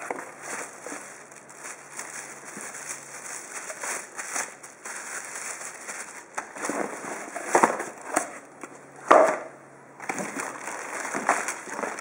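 Plastic packaging crinkling and cardboard rustling as wrapped parts are handled and lifted out of a shipping box, irregular throughout, with a few louder crackles and knocks about two-thirds of the way through.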